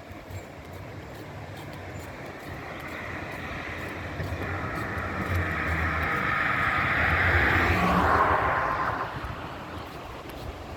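A motor vehicle passing by: its engine and tyre noise grow louder over several seconds, peak about eight seconds in, then fade as its tone drops in pitch.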